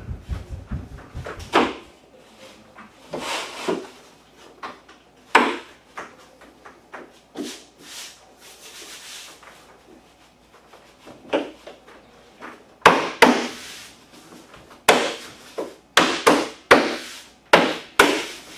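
Drop-and-lock laminate planks being handled and fitted over plastic dimpled underlayment: planks sliding and rubbing, with scattered knocks and clicks as the boards are set down and their joints pressed into place. The knocks come thick and sharp in the last several seconds.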